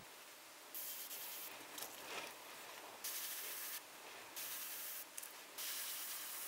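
Gravity-feed airbrush spraying Indian ink onto paper. The airbrush gives about five short bursts of hiss, each under a second, as the trigger is pressed and released.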